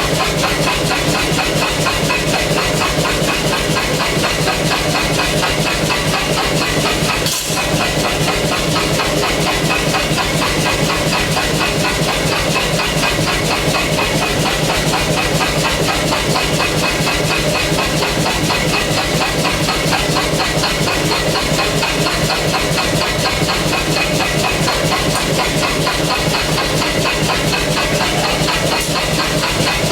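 Pneumatic air hammer (power hammer) running continuously, beating in a fast, even rhythm of blows with a hiss of air.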